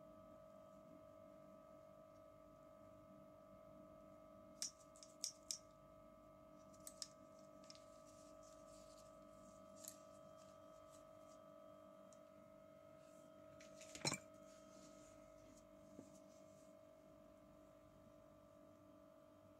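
Plastic toy doctor-kit scissors and tools clicking and tapping as they are handled: a few faint sharp clicks, a cluster of three around five seconds in and the loudest near the end of the second third, over a faint steady hum.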